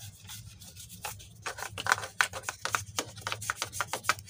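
A paintbrush scrubbing oily grime off a car engine with petrol: a quick, irregular run of short scratchy strokes, over a faint steady low hum.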